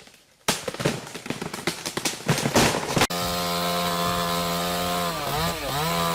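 A rapid run of irregular cracks and knocks, then an abrupt cut about three seconds in to a two-stroke chainsaw running at high revs. The saw's pitch dips briefly twice near the end.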